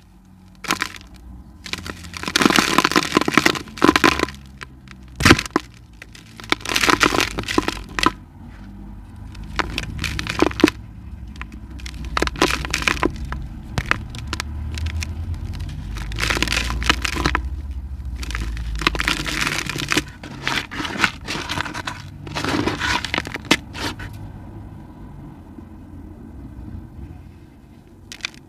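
Dry cement lumps being crushed and crumbled, a grainy, crunchy crackling that comes in repeated bursts of a second or two with short pauses between, over a low rumble.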